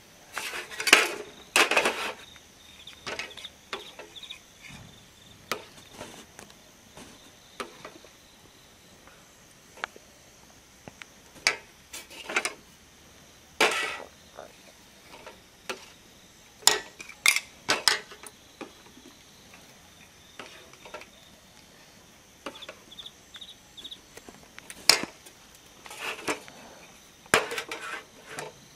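Irregular clinks and knocks of kitchen utensils against metal pots and dishes, in clusters with gaps of several seconds. A steady high-pitched insect drone runs behind.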